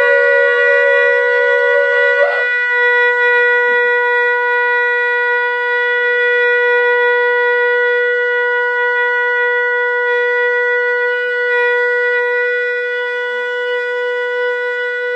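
Two shofars blown together. One stops about two seconds in, and the other, a long curved horn, holds one long, steady, unbroken note.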